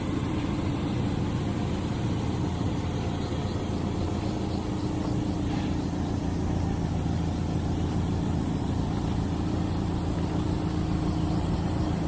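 A vehicle engine idling steadily, an even low hum with no change in speed.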